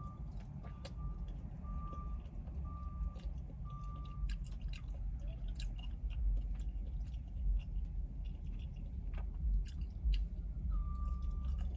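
A truck's reversing alarm beeping in a single high tone about once a second, stopping after about four seconds and starting again near the end, over a steady low rumble. Close chewing and small fork clicks on the food are heard throughout.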